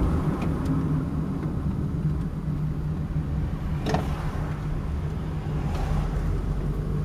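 Car engine and tyres on a wet road, a steady low drone heard from inside the cabin, with a short click about four seconds in.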